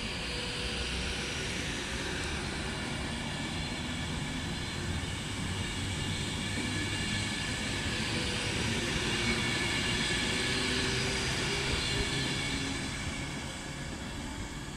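Avanti West Coast Class 390 Pendolino electric train running slowly along the platform: a low rumble of wheels with a steady electric motor whine over it. It grows louder to a peak about ten to twelve seconds in, then fades as the train draws away.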